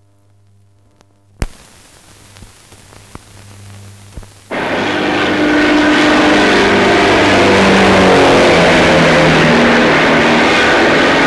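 Worn film soundtrack hiss with a steady low hum and scattered clicks, then music with shifting sustained notes starts suddenly about four and a half seconds in and is loud until it cuts off near the end.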